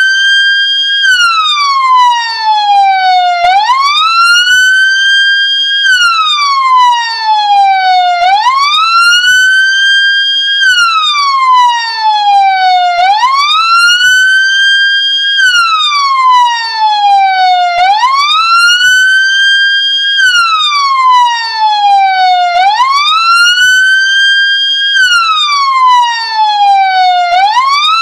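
Ambulance siren wailing, loud and steady. The pitch rises quickly, holds a moment at the top, then falls more slowly, repeating in an even cycle a little over every two seconds.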